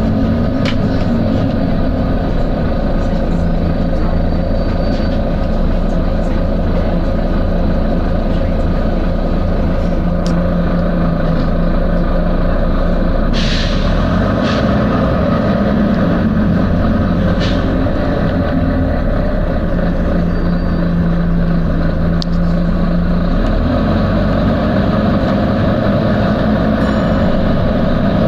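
Volvo B9TL double-decker bus's diesel engine running steadily, with a few short air hisses from its air system, the clearest about halfway through.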